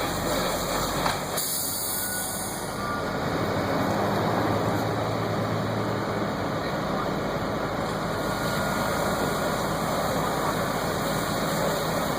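A heavy vehicle's engine running steadily under a constant rushing noise, with no bangs.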